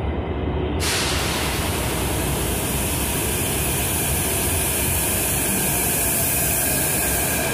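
A CAF-built São Paulo Metro Line 5-Lilac train pulling into an underground station platform: a steady low rumble, with a loud hiss setting in about a second in.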